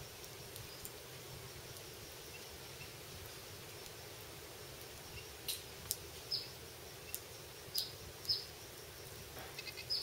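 Lesser goldfinches at a thistle sock feeder giving short, high chirps: about six single notes from about halfway in, then a quick little run of notes near the end, over a steady low background hum.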